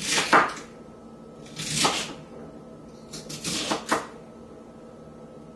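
Chef's knife chopping celery stalks on a wooden cutting board: three short runs of quick knocks of the blade on the board, with pauses between them.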